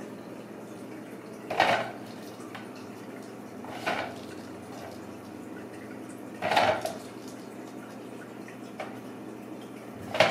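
A clear plastic hamster ball clattering four times as kittens bat and push it across a hardwood floor, each knock brief and sharp, over a steady low hum.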